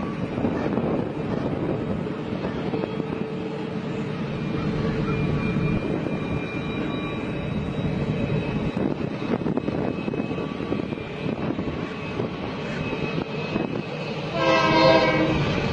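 A train running with a steady rumble, and a short horn blast near the end.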